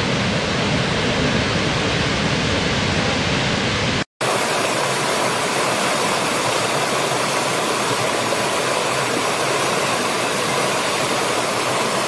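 Steady rush of a large waterfall with a deep rumble. About four seconds in it breaks off for a moment and gives way to the lighter, hissier rush of a small stream running over rocks.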